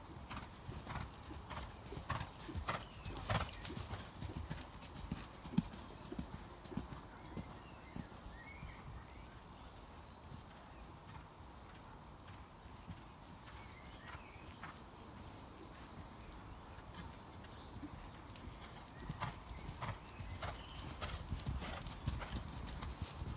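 Hoofbeats of a horse ridden on a sand dressage arena, louder in the first few seconds and again near the end as it passes close, fainter in between.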